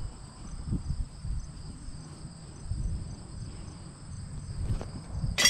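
Insects trilling steadily at a high pitch, with low rumble beneath. A sudden sharp impact comes right at the end.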